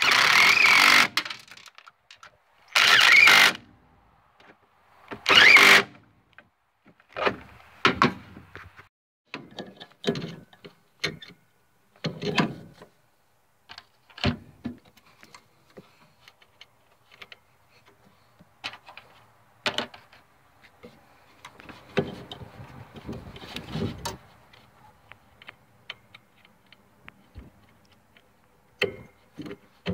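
Hand work on a riding mower's blade-engage cable linkage: three loud, second-long rushes of noise in the first six seconds, then scattered clicks, clinks and knocks of tools and metal parts.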